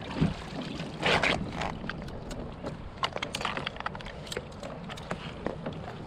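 A fish stringer being handled on a plastic kayak deck as a large lingcod is clipped on. There is a brief scuffling burst about a second in, then a run of short light clicks and clinks from the stringer's clips.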